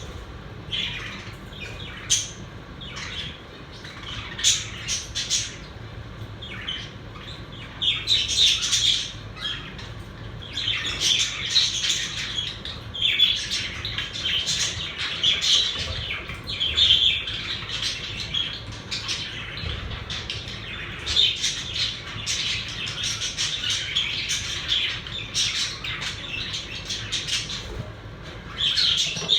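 Several pet budgerigars chattering and chirping without a break, in a busy warble of short squawks and tweets. The chatter comes in louder spells, with a few short clicks among it.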